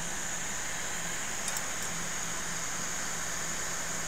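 Steady hum and hiss of a fan-like background noise, with two faint clicks about a second and a half in.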